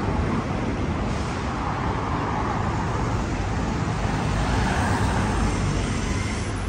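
City street traffic: a steady rumble of road vehicles, swelling slightly as one passes about two-thirds of the way through.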